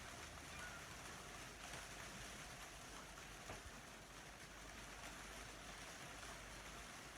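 Faint, steady rain falling, an even hiss with no distinct drops or other events.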